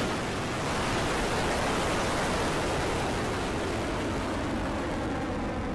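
Rocket Lab Electron rocket's nine Rutherford first-stage engines at liftoff: a steady, rushing noise that eases slightly as the rocket climbs away from the pad.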